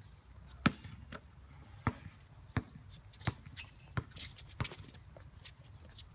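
Basketball bouncing on an outdoor hard court as it is dribbled: a run of sharp bounces roughly every two-thirds of a second, ending about four and a half seconds in.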